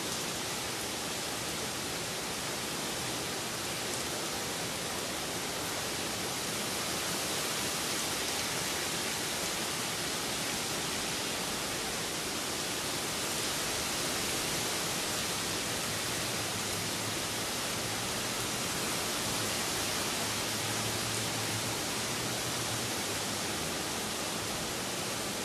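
Steady rain falling on leafy trees: an even hiss that does not let up.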